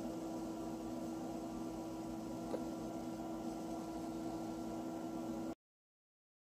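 Steady electrical hum with one strong low tone over faint room noise, with a tiny click about halfway through. It cuts off abruptly to dead silence about five and a half seconds in.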